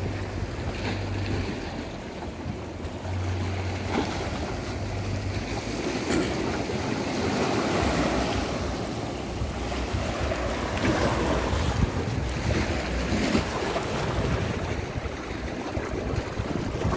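Sea waves washing against jetty rocks, with wind buffeting the microphone. A low hum comes and goes underneath.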